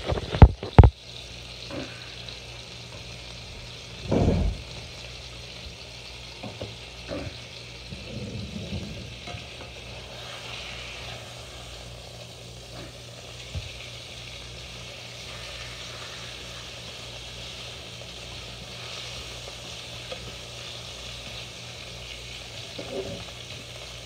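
Bacon sizzling in a frying pan with a steady hiss. A few sharp knocks come in the first second, and a dull thump about four seconds in.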